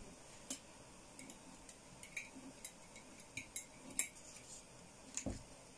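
Faint, scattered clicks and light taps as vegetables are pressed by hand into a glass canning jar, knocking against the glass.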